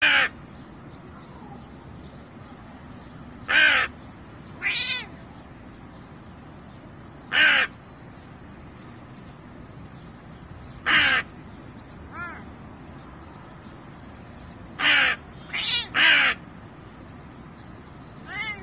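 Hooded crow cawing: short single caws every few seconds, with three in quick succession near the end.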